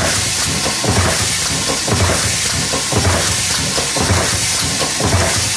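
US Baird 437 16-station transfer press running, deep-drawing 9x19 mm pistol cases. It makes a regular low thud about once a second, with lighter strokes between, over a steady hiss.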